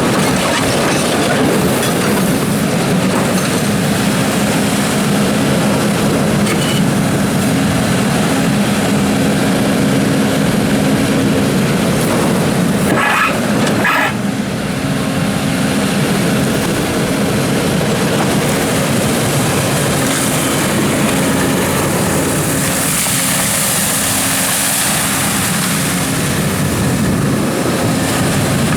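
Doosan DX300 excavator digging gravel: its diesel engine runs steadily under load, with the grating clatter of stones and machinery. A short high-pitched squeal about halfway through.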